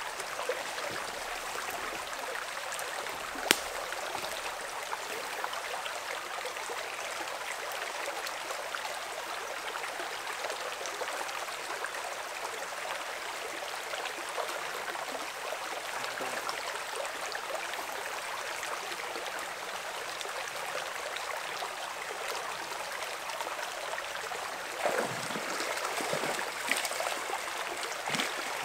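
Small creek running steadily. There is one sharp click a few seconds in, and near the end irregular splashing as a hooked brook trout fights at the surface.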